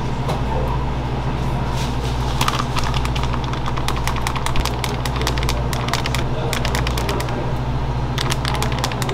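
Bakery kitchen work: a steady low machine hum with rapid clicking and tapping of utensils or equipment starting a couple of seconds in, pausing briefly near the end.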